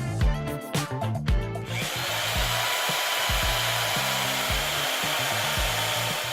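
A power tool starts about two seconds in and runs steadily, a dense, even noise, over background music.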